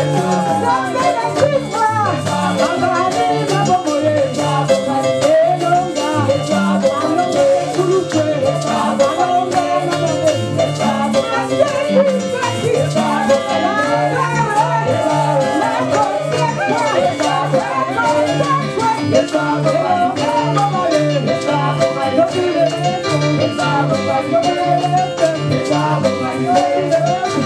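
Congolese gospel song with a woman singing lead into a microphone and other voices joining, over a repeating bass line and fast, steady percussion.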